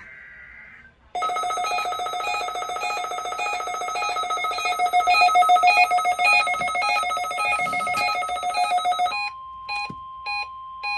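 Weather radio alarm for a National Weather Service weekly test. A loud electronic ringing alert with a beep repeating about twice a second gives way, about nine seconds in, to the steady 1050 Hz warning alarm tone, with the beeps still going on over it.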